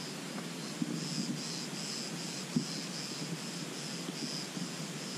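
Insects chirping in a steady rhythm, about two high chirps a second, over a low steady noise, with a couple of soft knocks.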